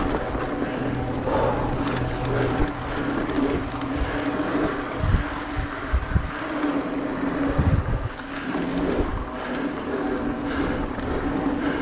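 Mountain bike rolling fast along a dirt singletrack: tyre noise on dirt and dry leaves and the rattle of the bike, under a steady hum, with several heavy low thumps about halfway through as the bike hits bumps.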